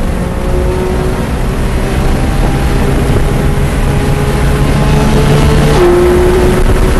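Porsche 911 GT3 RS naturally aspirated flat-six at full throttle under hard acceleration. Engine pitch climbs steadily, drops sharply in a quick upshift about six seconds in, then starts climbing again, over loud low road and wind rumble.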